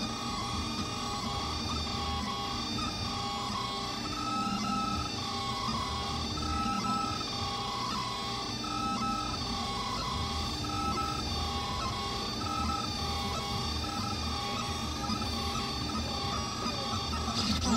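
3D printer printing: its stepper motors whine in short tones that jump up and down in pitch as the print head moves, over a steady fan whir. A brief sharp click comes near the end.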